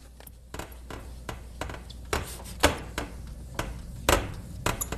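Paper towel rubbed over fireplace door glass, giving a quick, uneven series of short squeaks, about two a second. The squeaking is the sign that the glass is now completely clean.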